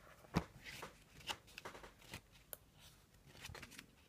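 Brand-new tarot cards being handled and looked through: soft, irregular clicks and rustles of card against card, the sharpest tap about half a second in.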